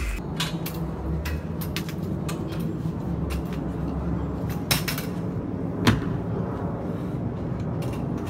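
Gym room sound: a steady low hum with scattered knocks and clanks of weight equipment, the sharpest about five and six seconds in.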